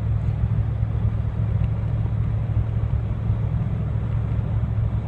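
Steady low drone of a vehicle's engine and road noise heard from inside the cabin.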